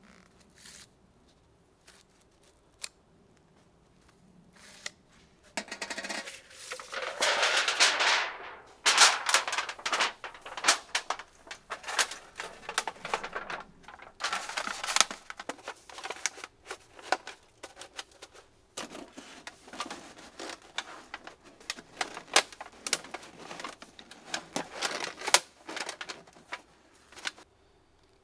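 Telescoping metal chimney pipe of a Pomoly wood stove being fitted to the stove and pulled out section by section: a long metal scrape, then runs of quick metallic clicks and rattles with a short lull.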